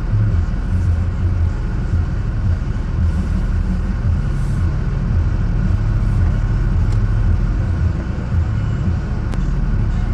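Four-wheel-drive vehicle's engine running in four-wheel-drive low, a steady low rumble.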